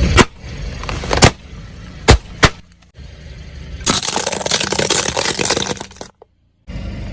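Objects cracking and breaking under a car's tyres: four sharp cracks in the first two and a half seconds, then about two seconds of dense crunching. The sound cuts out abruptly about six seconds in.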